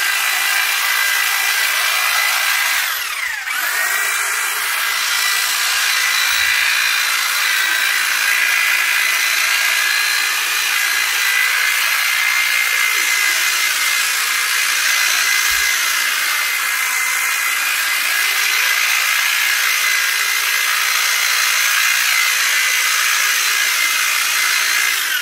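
Corded electric Titan long-reach hedge trimmer running, its reciprocating blades cutting through a hedge with a steady high whine. About three seconds in the motor briefly slows and then picks up speed again.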